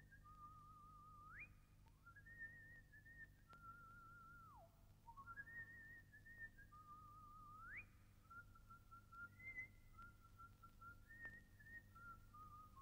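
Faint whistle-like tune: a single line of held, fast-warbling notes that step between pitches, with sharp slides up and down now and then.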